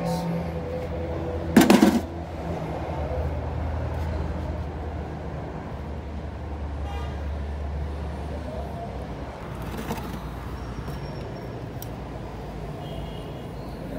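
Metal automatic-transmission parts being handled: one loud clatter about one and a half seconds in and a few light clicks later, over a steady low rumble that fades partway through.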